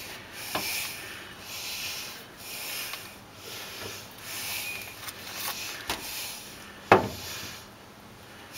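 Rhythmic rasping, rubbing strokes, about one a second, broken by a few sharp knocks, the loudest a little before the end, as tools work at a stuck upper ball joint in a 1966 Ford Mustang's front suspension.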